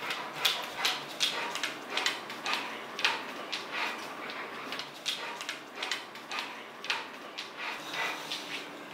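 Rottweiler panting in quick, even breaths, about two to three a second.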